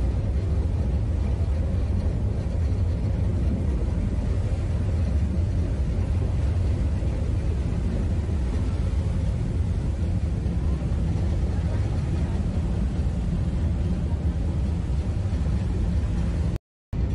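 Steady low rumble on the open deck of a moving passenger ferry, with wind on the microphone over the ship's engine drone. It cuts out for a moment near the end.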